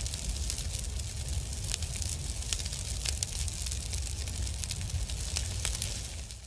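Fire sound effect: a low rumble of burning flames with dense, irregular crackling, fading out near the end.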